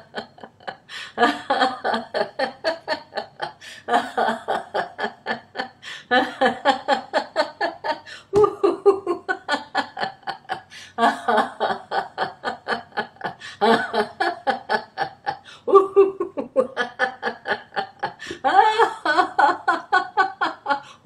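A woman laughing heartily in a laughter-club exercise: laughter done on purpose, without a joke. It comes in runs of about two seconds, each a quick string of 'ha' pulses, with short breaks for breath between runs.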